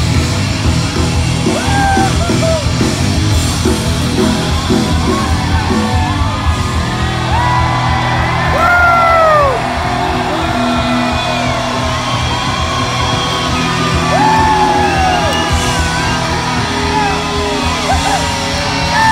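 A live rock band plays loudly in a concert hall while people in the crowd yell and whoop over the music.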